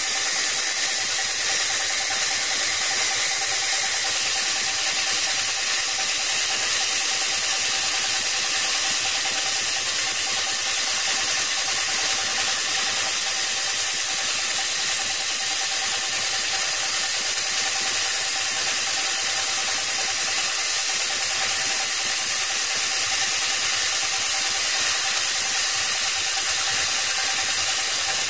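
Large vertical band sawmill running as a log on the carriage is fed through the blade: a loud, steady, high-pitched hiss with a steady mid tone underneath, unchanging throughout.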